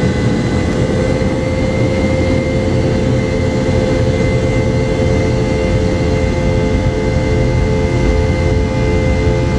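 Boeing 717's rear-mounted Rolls-Royce BR715 turbofans at full takeoff thrust during the takeoff roll, heard from inside the cabin: a steady engine whine over a heavy low rumble.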